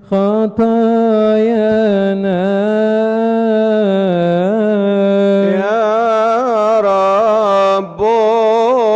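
A solo male voice chants a long melismatic Coptic liturgical melody, holding drawn-out notes with wavering ornaments. There are brief breaks for breath at the start and about eight seconds in.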